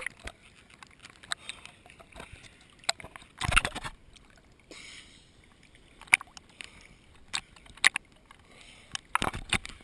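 Small sea waves slapping and splashing against a GoPro camera's sealed waterproof housing as it bobs at the water surface, heard muffled through the case. A bigger splash comes about three and a half seconds in, and a quick run of slaps near the end.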